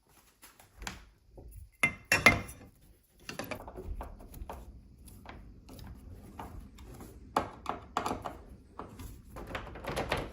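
Scattered clicks and knocks of small hard lock parts being handled and fitted onto a door, loudest about two seconds in, with low rubbing and handling noise between them.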